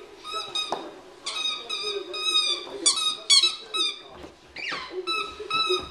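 Squeaky dog toy squeezed in quick clusters as a Bernese Mountain Dog puppy chews it. Each squeak is short and holds one high pitch.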